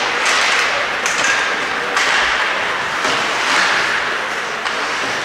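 Ice hockey play: skate blades scraping and carving the ice in swelling hisses, with a few sharp clacks of sticks on the puck.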